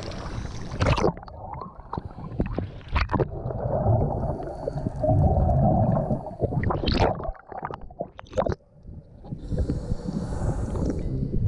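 Water splashing at the surface, then about a second in the sound goes muffled as the microphone goes under. After that comes a low underwater rumble with the gurgling of a scuba diver's exhaust bubbles.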